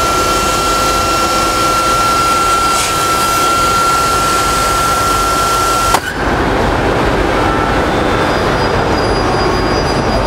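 Festool TKS 80 table saw running with a steady high whine. About six seconds in, its SawStop brake fires on contact with the blade: a sharp bang, and the whine stops at once as the brake cartridge jams into the blade and the blade drops below the table. A steady lower noise carries on afterwards.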